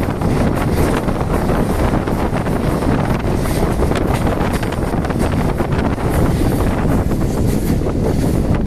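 Wind buffeting the microphone of a phone held out of a moving train, over the steady noise of the train running on the rails, with many small clicks in it.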